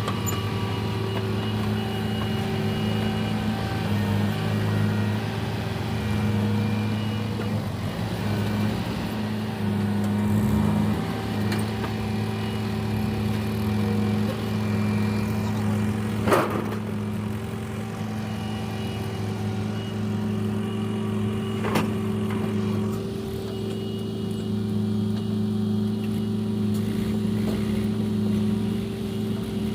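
Backhoe loader's diesel engine running steadily at an even speed, with two sharp metallic knocks, one about halfway through and another some five seconds later.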